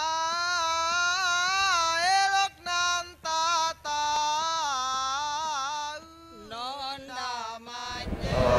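A high solo voice singing a wavering, ornamented melody alone, in several phrases broken by short pauses, dropping lower for a few shorter phrases near the end.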